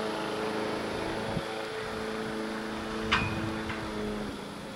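Steady low engine drone made of several held tones, with a small click about a second and a half in and a single short, sharp bird call falling in pitch about three seconds in.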